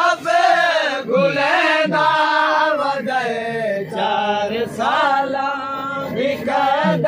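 Men chanting a nauha, a Muharram mourning lament, together in a crowd. The singing is continuous and carries a slow, repeating melodic line.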